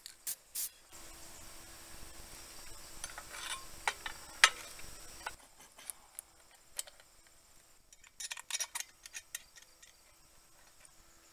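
Metal clicks and clinks from a small two-stroke pocket bike engine and its roller chain being handled and set onto a steel mounting plate. There is rubbing handling noise through the first half, with one sharp metallic knock about four and a half seconds in and a quick run of light chain clicks near the end.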